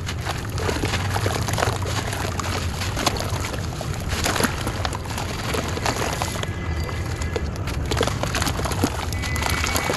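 Dry, stony clay cylinder crumbling and crunching in the hands, with a dense crackle of small cracks and gritty bits falling and sloshing into water in a tub.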